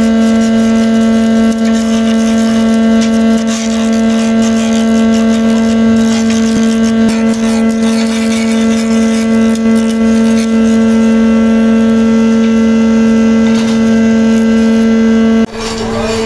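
Metal lathe running with a steady motor hum while it turns a wooden pool cue blank. The sound dips briefly near the end, then the hum carries on.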